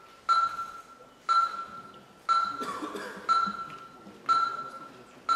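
Electronic voting system's countdown signal: a short chime-like beep on one pitch, repeated about once a second, each sharp at the start and fading away. It marks the last seconds left to cast a vote.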